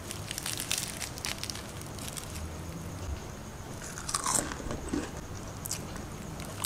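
Crisp, flaky puff pastry crackling and crunching as it is broken apart by hand: a quick run of small crackles over the first two seconds or so, a louder crunch about four seconds in, and a sharp crack near the end.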